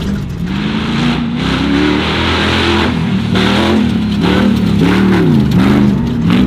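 Off-road race truck's engine revving up and down again and again as it is driven hard through dirt, with deep dips and climbs in pitch about two-thirds of the way through, over a steady rushing noise of tyres spraying dirt.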